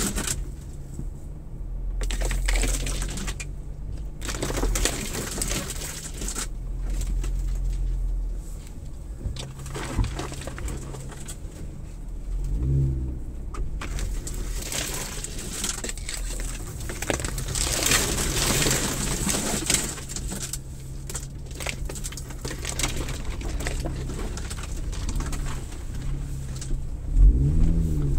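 Jeep Gladiator engine running at low speed, heard from inside the cab as a steady low drone, briefly revving up twice, about halfway and near the end. Intermittent brushing and hissing noises ride over it as the truck pushes along the snowy track.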